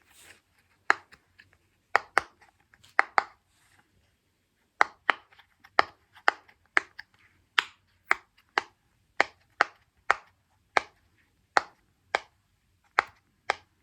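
Silicone pop-it fidget toy being pressed bubble by bubble, each press giving a sharp pop; a few scattered pops at first, then a steady run of about two a second from around five seconds in.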